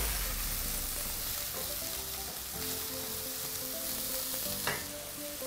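Diced chicken with onions and celery sizzling in oil and butter in a stainless steel pan, stirred with a wooden spatula, with one brief knock near the end.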